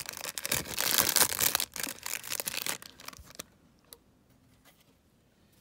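Cellophane wrapper from a pack of trading cards crinkling as it is handled and crumpled, stopping about three and a half seconds in; after that, quiet but for a single light tap.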